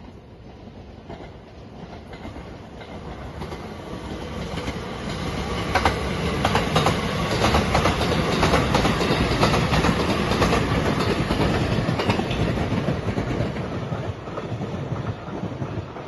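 Marine Liner rapid train, a JR 223 series electric multiple unit, passing close by. It builds up over several seconds, its wheels clacking over the rail joints, and fades near the end.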